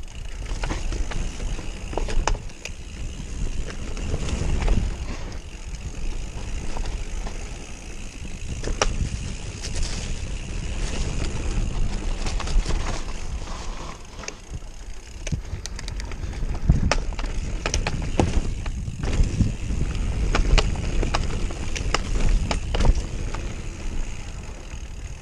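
Mountain bike ridden fast down a dirt trail: a continuous low rumble of air and tyres on dirt, broken by frequent sharp rattles and knocks as the bike goes over bumps.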